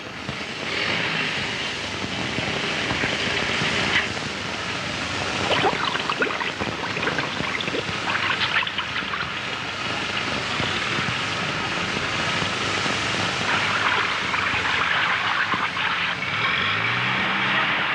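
A motor vehicle's engine running under a steady rushing noise of river water, with a few sharp splashes or knocks; near the end the engine revs up.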